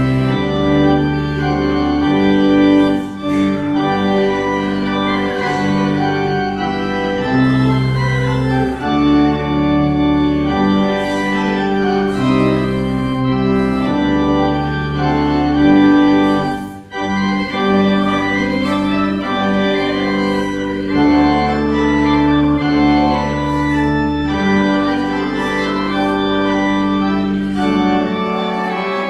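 Church organ playing a hymn tune in sustained full chords over a bass line, the notes changing every second or so, with one short break between phrases about two-thirds of the way through.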